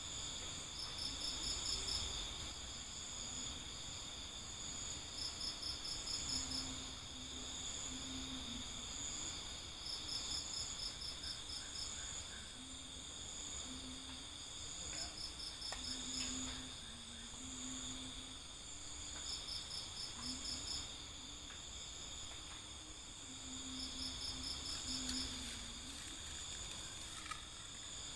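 Forest insect chorus: a steady high trill, with a short burst of rapid chirps repeating about every four to five seconds, and a low intermittent drone underneath.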